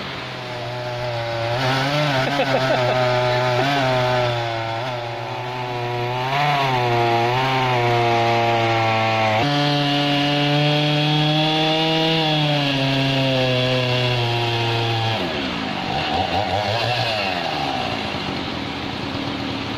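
Two-stroke Husqvarna chainsaw running under load, ripping lengthwise through a log. The engine note sags and wavers as the chain bites, and its revs drop and waver near the end.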